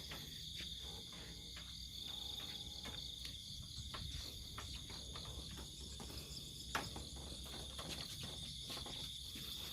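A steady outdoor insect chorus, a high pulsing chirring like crickets, with scattered light clicks, one sharper about seven seconds in.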